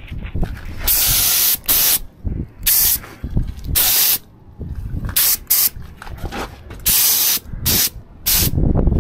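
Air spray gun spraying epoxy primer in about nine short trigger pulls of hiss at irregular gaps. Wind rumbles on the microphone underneath.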